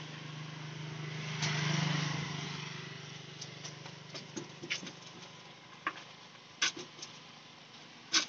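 A vehicle passes, rising and fading over the first few seconds, above a low steady hum. Then come scattered light clicks and rustles of puffed rice being stirred by hand in a steel pot and scooped into leaf bowls, with sharper clicks about two-thirds of the way in and near the end.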